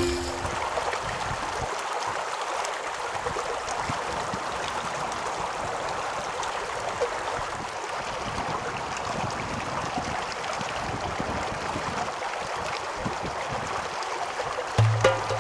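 Water running steadily along a mountain water canal: an even rushing hiss.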